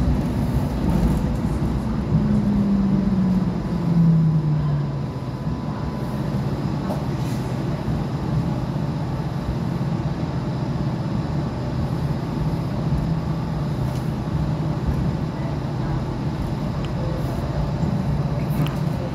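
Light rail tram running, heard from inside the car: a steady low rumble of wheels and running gear. Its motor gives a tone that slides down in pitch between about two and five seconds in.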